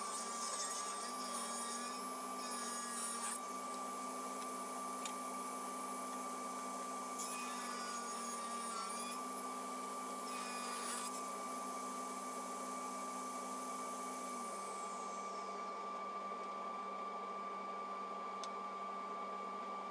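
Workshop saw running with a steady whine, cutting wood in several short passes, then switched off about three-quarters of the way through and winding down with a falling pitch.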